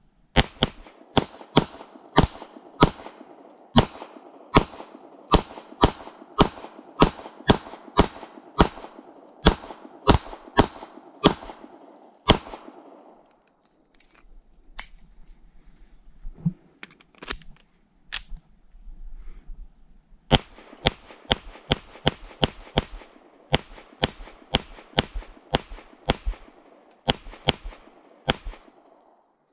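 Springfield Armory Prodigy 9mm pistol firing steadily, about two shots a second: a string of about twenty shots, then a pause of several seconds with only a few clicks, then a second string of about seventeen shots.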